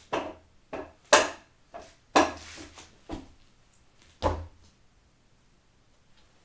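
A Wing Chun wooden dummy struck by forearms and hands: a quick series of sharp wooden knocks and slaps, about seven in all. The last, heavier knock with a low thud about four seconds in comes as a bare foot stamps the dummy's leg.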